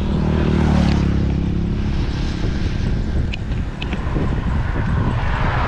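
Wind buffeting an action camera's microphone as the bicycle rolls along at speed, with a steady low hum for about the first two seconds.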